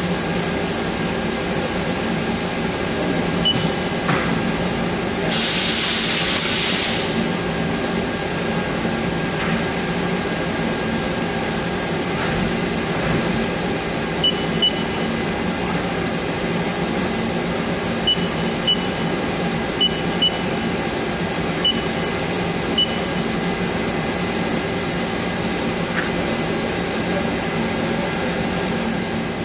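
Haas ST-15Y CNC turning center running, a steady machine hum with several held tones. A burst of hiss comes about five seconds in and lasts under two seconds, and a string of short high chirps follows in the second half.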